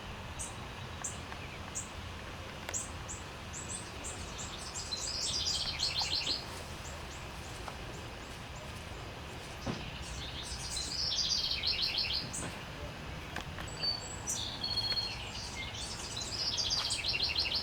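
Small songbirds singing: a song that comes three times, about every six seconds, a run of short high notes leading into a rapid trill, with other short chirps between.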